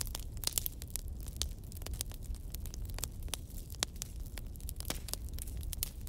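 Wood campfire crackling: irregular sharp snaps and pops over a low steady rumble.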